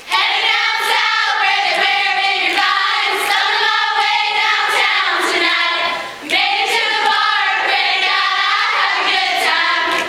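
A large group of young women singing together as a choir, loud and sustained; the singing dips briefly about six seconds in, then carries on until just before the end.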